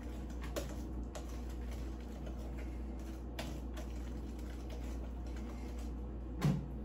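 Spatula scraping and folding thick cake batter in a mixing bowl: faint soft scrapes with light ticks and an occasional sharper tap against the bowl, over a steady low hum.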